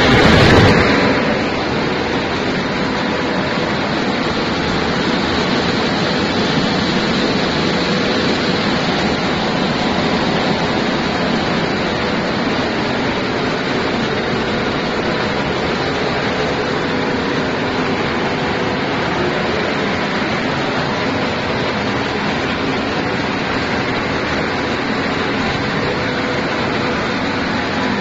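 Seed-cleaning machinery running on cumin seed: a 5XZC-7.5DS air-screen seed cleaner and a 5XZ-6 gravity separator, giving a steady rushing noise of fans, vibrating decks and flowing seed with a faint motor hum. The noise is briefly louder in the first second.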